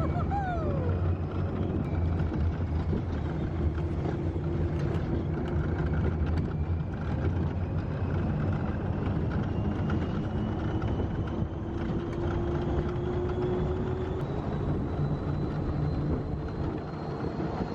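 Test Track ride vehicle running along the track: a steady low rumble with a thin motor whine that slowly rises in pitch, and a brief falling whine about half a second in.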